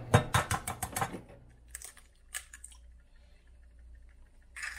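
Eggs being cracked into a glass measuring cup with a metal spoon in it: a quick run of sharp taps and clinks of shell and spoon against the glass in the first second, a few more near the middle, and another short cluster near the end.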